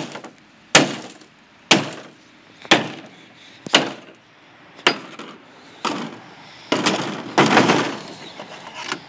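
A claw hammer strikes a cracked iPhone 3GS on hard plastic about seven times, roughly one blow a second, breaking up its glass and casing. Near the end comes a longer scraping clatter.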